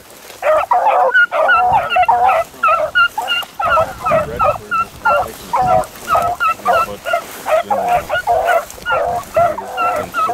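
Beagles baying in quick, overlapping bawls, several calls a second: the cry of hounds on a rabbit's scent.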